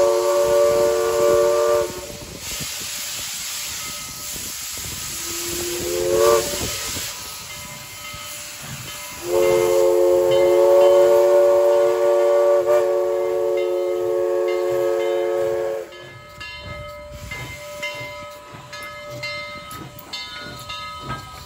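Steam whistle of the 2-8-2 locomotive 4501 sounding a chord of several notes: a blast that ends about two seconds in, a short toot that rises in pitch about six seconds in, then a long blast held for about six seconds, with steam hissing between the blasts. After the long blast the train clanks and clicks past.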